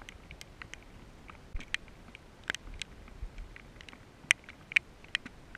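Raindrops tapping on the camera, heard as irregular sharp ticks, a few of them louder, over a faint steady hiss of rain.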